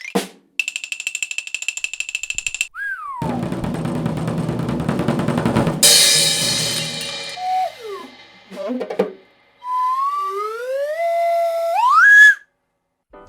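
A run of cartoon sound effects: a fast ringing rattle for about two seconds, a short falling whistle, then a drum roll that ends in a cymbal crash. After a few short falling glides, slide-whistle glides climb upward near the end.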